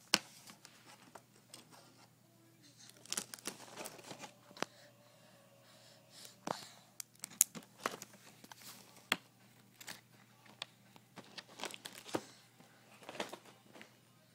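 Plastic cracker sleeve crinkling and crackling in irregular spurts as a toddler's hand rummages in the cracker box for a cracker.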